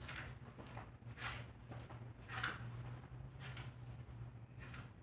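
Freshly cleaned and oiled Lasko Power Plus box fan running with a steady low hum, plus a soft swishing sound that repeats about once every second and a bit.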